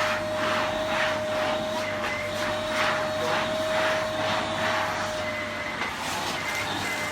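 Vytronix CYL01 bagless cylinder vacuum cleaner running with its 800 W motor, a steady whine under a rushing intake noise that swells and fades about one and a half times a second as it sucks up spilled cereal; the whine weakens near the end.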